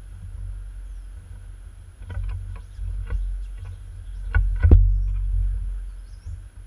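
A squirrel feeding on mango right against the microphone: a run of small clicks and knocks as it moves on the metal tray and brushes the camera, the loudest two knocks a little past the middle, over a low rumble. A few faint bird chirps come near the end.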